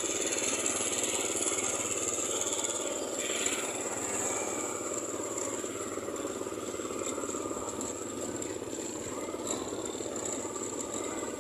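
Steady street traffic noise, with motorcycle engines running among it.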